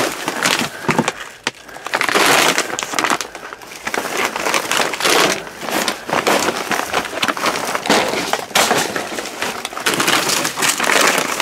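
Hands rummaging through trash: plastic bags and packaging crinkling and rustling, with irregular clatter and knocks as boxes and other items are shifted.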